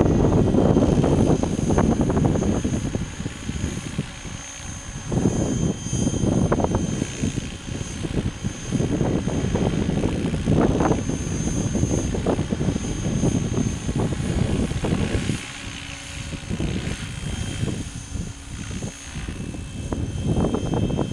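Radio-controlled model helicopter flying overhead, its rotor and motor noise swelling and fading as it manoeuvres, with a thin high whine on top.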